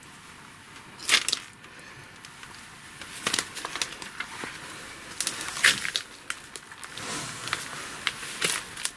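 Irregular clicks, taps and rustling in a small room, with the sharpest clicks about a second in and near the middle.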